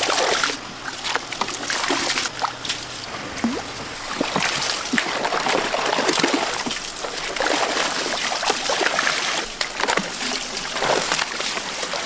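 Live fish thrashing in a shallow plastic tub of water as a dip net scoops through them: continuous irregular splashing and sloshing, with many sharp splashes.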